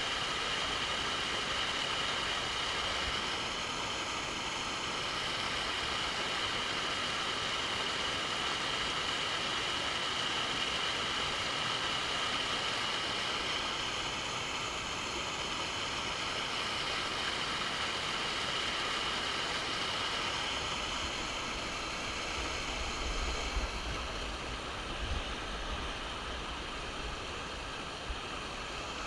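Steady rush of a waterfall, an even hiss of falling water, with a low rumble joining in the last several seconds.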